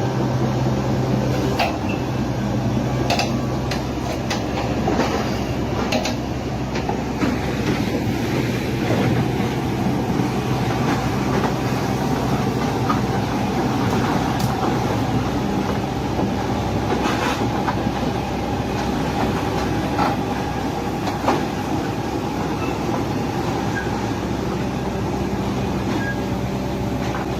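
A large engine or heavy machine running steadily, with scattered knocks and clanks.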